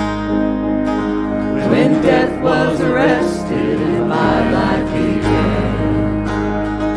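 Worship band music: several voices singing together over acoustic guitar and bass, with steady held chords underneath and the voices coming in strongest a couple of seconds in.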